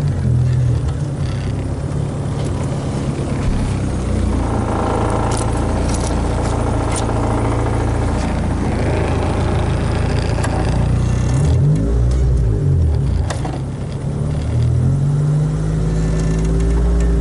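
Honda Civic engine running while driving, its note rising and falling as the gas pedal is pressed and let off, with road noise and a few sharp clicks scattered through.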